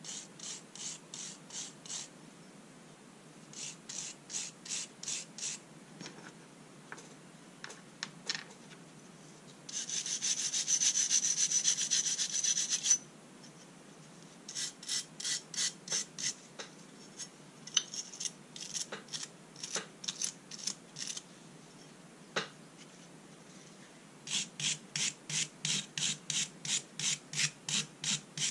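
Steel wire hand brush scrubbing a small metal part in short back-and-forth strokes, about three a second, in several runs. About ten seconds in comes a spell of fast, continuous, louder scrubbing that lasts about three seconds.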